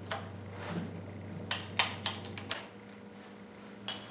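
Hand wrench clinking on the bolts and metal of a Chevy 350 small-block engine being unbolted: a few sharp, irregular metal clicks and taps, the loudest near the end. A low steady hum stops about two and a half seconds in.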